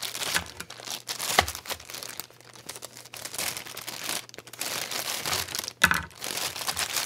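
Plastic poly mailer bag crinkling and rustling as it is handled and opened by hand, with sharper crackles about a second and a half in and again near six seconds.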